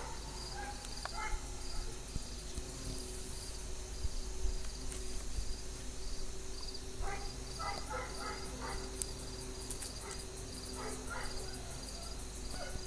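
Insects chirping in a steady pulse, about two to three short high chirps a second, typical of crickets, over a faint low hum.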